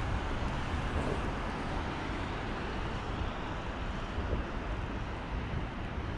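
Steady rushing of a high, fast-flowing river around a wading angler, with a low rumble underneath.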